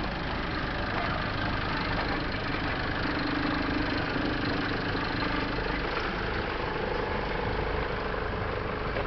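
Car engine running low with a steady rumble, heard from inside a car moving slowly.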